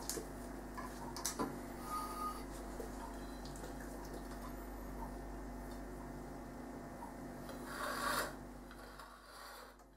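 Light kitchen handling sounds: a few soft taps as cocoa is dusted through a small mesh sieve, then a short rubbing scrape about eight seconds in as a ceramic plate is handled on a granite worktop. A steady low hum runs underneath.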